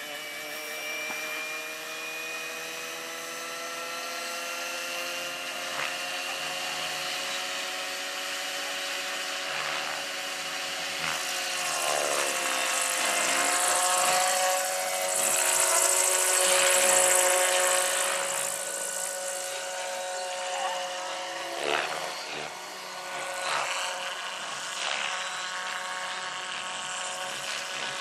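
Electric scale model BO-105 helicopter with a rotor about 1.5 m across. Its motor whine and rotor rise slowly in pitch as it spools up, then lift off into a hover, loudest about halfway through with a rushing hiss, and the pitch shifts as it flies off. A couple of brief thumps come in the second half.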